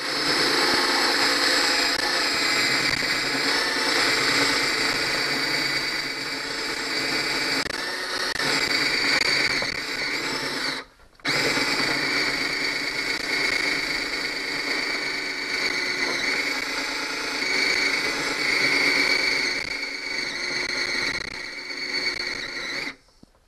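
Power drill boring a 1.25-inch hole through a kitchen cabinet, running steadily. It stops briefly about eleven seconds in, starts again, and stops near the end.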